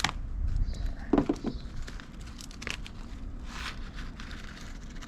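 Plastic packaging bag crinkling and crackling as it is handled and opened, with scattered short clicks.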